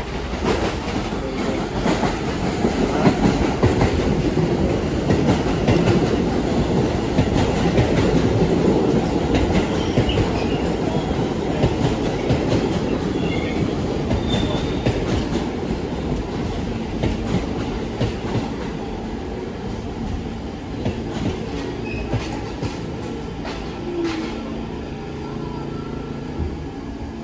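New York City subway train passing on the tracks. The rail noise builds to its loudest a few seconds in, then slowly fades as the train moves away.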